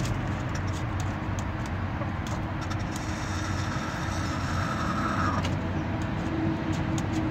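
A steady low motor hum, like an engine idling, runs under scattered sharp clicks of chickens pecking feed off the dirt. From about three to five seconds in, a higher steady tone joins, then stops.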